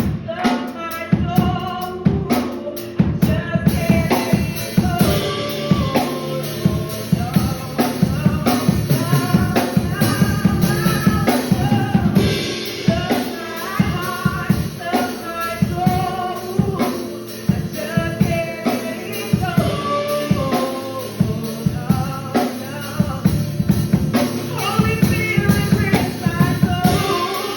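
Live church worship music: a singer's voice over a full drum kit with bass drum and snare, playing steadily throughout.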